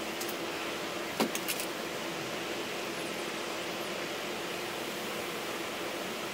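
Handheld gas torch burning with a steady hiss. A few light knocks come about a second in.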